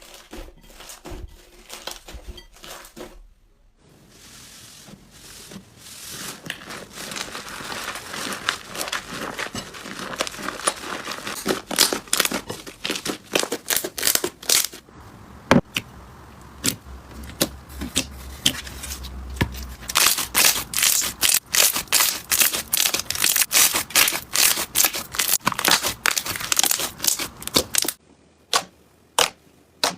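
Slime being squeezed and stretched by hand, giving dense crackling and popping clicks. The sound changes abruptly at about three and a half seconds and again near the end, where it thins to a few sharp, separate clicks.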